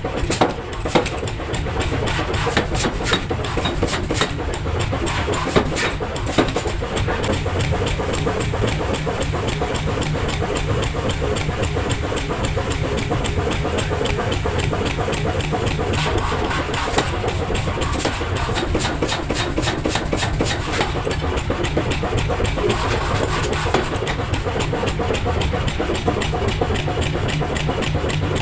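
Rapid, continuous hammer blows on hot steel over the steady hum of running machinery, typical of a mechanical forging hammer at work.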